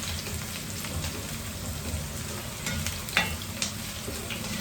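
Onions frying in oil in a pan, sizzling steadily while being stirred, with small scrapes and clicks and one sharp knock a little past three seconds in.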